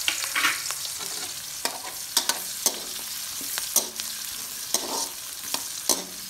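Sliced onions, curry leaves and red chillies sizzling in hot oil in a metal wok as a tempering. A metal spatula scrapes and clinks against the pan a dozen or so times at irregular moments as they are stirred.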